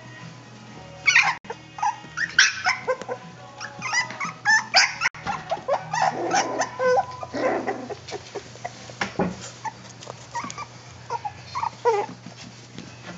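Four-week-old puppies playing and giving many short, high-pitched yelps and squeals, thickest in the first half and sparser toward the end.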